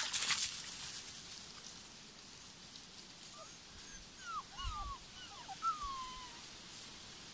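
West Siberian Laika puppies whining: a handful of short, high, curving whimpers in the middle of the clip. A brief rustling noise comes at the start.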